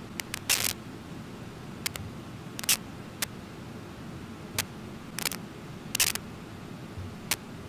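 Waterfall rushing steadily with a low roar of white water. About ten sharp, irregularly spaced clicks and short clicking bursts sound over it.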